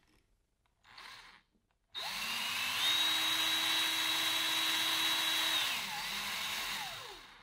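Cordless drill spinning a thin circuit-board drill bit fast, boring a hole into a plastic wing nut held against it. The motor starts about two seconds in, rises to a steady high whine, then slows and fades near the end.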